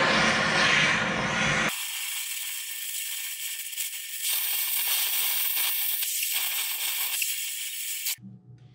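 Handheld gas torch flame hissing steadily as it heats the edge of a seized piston in a rusted flathead V8 cylinder. It is fuller and louder for the first couple of seconds, then turns to a thinner, higher hiss, and stops abruptly near the end.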